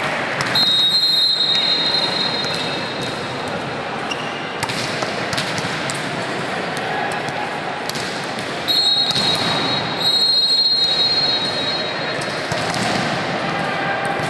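Volleyballs being spiked in warm-up: sharp slaps of ball on hand and floor, repeated irregularly over a steady murmur of voices in a large hall. A high steady whistle sounds twice, briefly near the start and for a few seconds in the middle.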